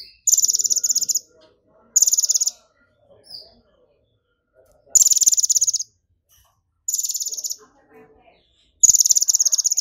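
Caged male purple-throated sunbird singing five rapid, buzzy, high-pitched trills, each lasting under a second to about a second and a half, with short pauses between. The keeper calls this excited song filled with golden-grasshopper (belalang emas) mimicry.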